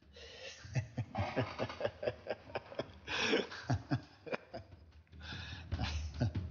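A man laughing heartily and at length, in a long run of short, quick bursts broken by a couple of breathy gasps.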